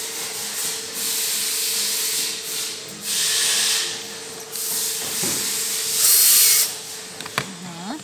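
Cordless drill-driver running in four short bursts, driving a screw into the plastic end cap of a metal tube; the last burst, about six seconds in, is the longest and loudest. A faint steady hum sits underneath.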